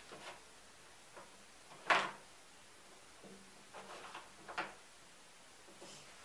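Small wooden cubes being set down and stacked on a tabletop: a scatter of short wooden knocks and clicks, the loudest about two seconds in and a quick cluster of three near the middle.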